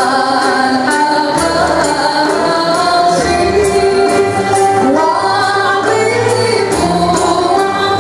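Moroccan song: a woman's voice singing a melodic line with an accompanying instrumental ensemble, over a steady beat of tambourine-like percussion.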